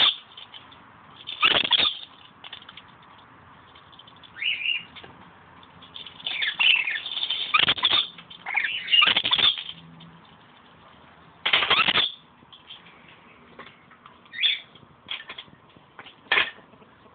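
Pet scaly-breasted lorikeet of the olive colour mutation giving short, shrill, harsh screeches, about ten of them at irregular intervals, bunched together in the middle.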